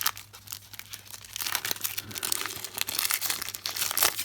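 Plastic wrapper of an NBA Hoops trading card pack crinkling and tearing as it is ripped open, a dense irregular crackle.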